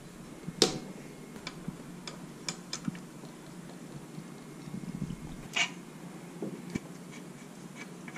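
Scattered metal clicks and clinks of a ratcheting combination wrench and tools on motorcycle brake caliper bolts, a dozen or so irregular ticks with two louder clacks, over a steady low hum.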